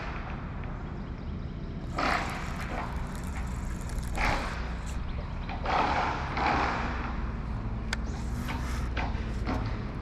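Low, steady hum of a bass boat's motor, with several short rushing noises and a few sharp clicks near the end.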